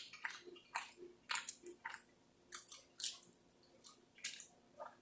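A person chewing food, a quiet string of short, irregular mouth clicks and crunches.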